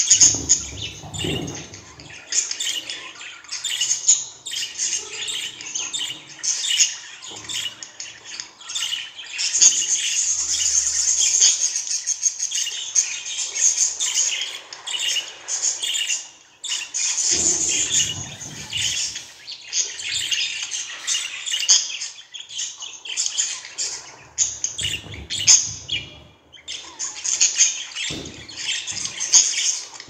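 Budgerigars chattering without a break, a busy warbling stream of chirps and squawks. It is thickest from about a third of the way in to about halfway. A few short, low-pitched noises come in among the chatter.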